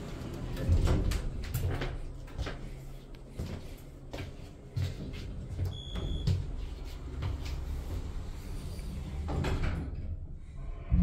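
Elevator running with a low rumble under scattered knocks and clatter from its sliding doors, and a single short electronic chime about six seconds in.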